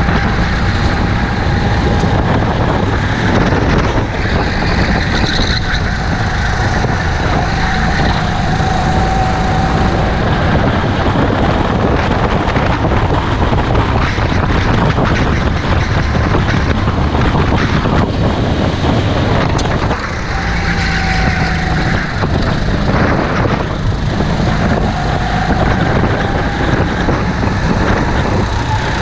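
Rental kart engines heard onboard at racing speed, loud and steady, the engine note climbing and falling as the throttle opens and closes through the corners, with a brief dip about twenty seconds in.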